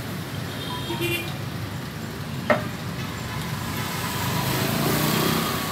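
Steady background rumble of road traffic, with a single sharp click about halfway through.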